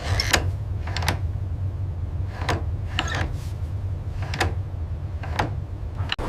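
A steady low mechanical hum with sharp clicks or knocks every second or so at uneven spacing.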